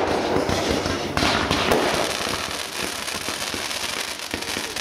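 Professional fireworks display: a dense, continuous barrage of shell bursts, launches and crackling pops, with a louder burst about a second in.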